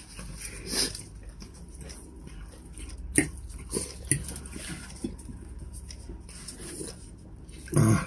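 People eating: chewing and mouth noises with scattered short clicks of cutlery on plates, and a brief low 'mm'-like voice sound near the end.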